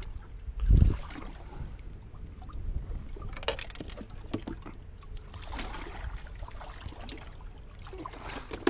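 Knocking and handling sounds in a small fishing boat: a heavy low thump against the hull about a second in, then scattered clicks and rustles of gear and fish being handled over a low wind and water rumble.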